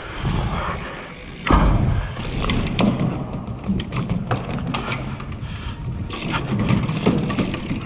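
Bike tyres rolling over wooden plank track sections, with a continuous clatter of knocks and rattles from the bike and the boards. A heavy thump comes about a second and a half in.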